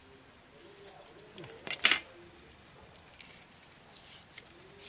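Green eeta (reed bamboo) being split and stripped into weaving splints with a sickle and by hand. A sharp tick comes at the start, then a loud tearing rasp about two seconds in, then lighter scratching and rustling of the strips.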